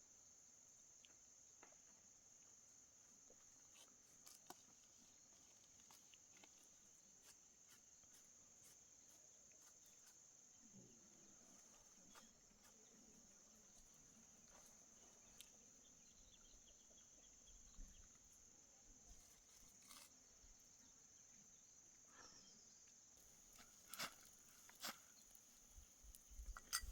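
Faint steady high-pitched chirring of insects, typical of crickets, with scattered small clicks and a few louder taps near the end.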